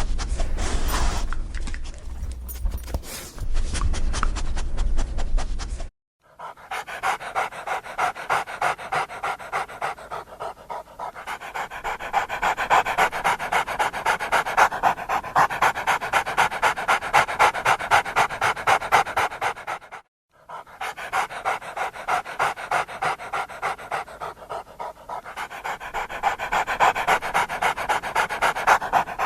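Dog panting rapidly in a steady, even rhythm of quick breaths, broken by abrupt cuts between clips. The first few seconds hold a different sound, with a low rumble and scattered knocks.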